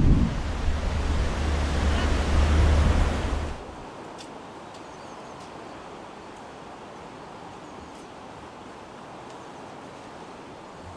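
Railway carriages rumbling past close by, with heavy wind buffeting on the microphone. About three and a half seconds in, the noise cuts off suddenly to a quiet steady background with a few faint ticks.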